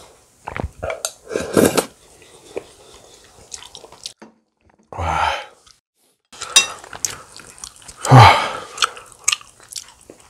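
Close-miked eating sounds of a man eating bibimbap: chewing and wet mouth noises with scattered clicks of a spoon against a bowl. There are two louder, longer noisy sounds, one about halfway through and a stronger one near the end.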